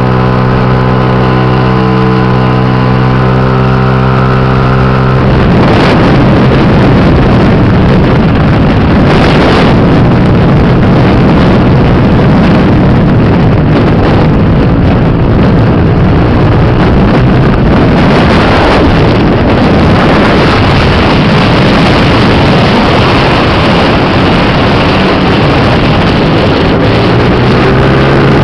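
Small scooter engine running at a steady note, then about five seconds in a loud rushing noise takes over and buries the engine note; the steady engine note comes back near the end.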